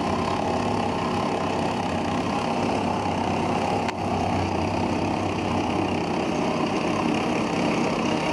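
Pneumatic impact wrench running steadily as it turns the threaded rod of a coil-spring compressor, squeezing a front suspension spring, with a brief dip about four seconds in.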